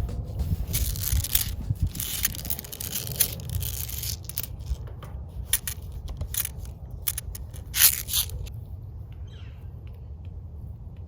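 Fidget toys being handled and squeezed: a run of short crackling, scraping clicks for about eight seconds, the loudest near the end of the run, after which only a low rumble remains.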